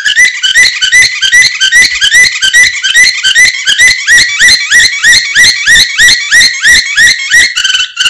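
Domestic canary singing a long run of repeated rising whistled notes, about three or four a second, changing to a quicker trill near the end.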